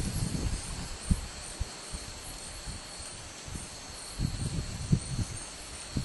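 Night insects chirring in a steady high-pitched chorus, with low bumps and rustling about a second in and again from about four seconds.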